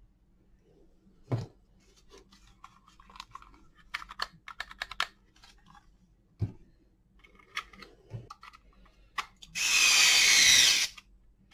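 Small plastic clicks and knocks as a power-tool battery case is handled and its halves fitted together, then about ten seconds in a cordless electric screwdriver runs for just over a second, driving a case screw.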